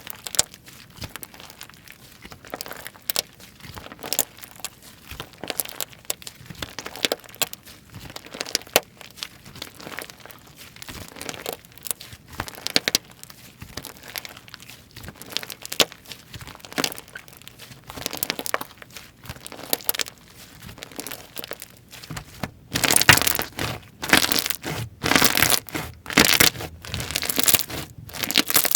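Slime being squished, pressed and pulled by hand, with many small crackles, pops and tearing sounds. About two-thirds of the way through the play gets louder, with denser bursts of crackling.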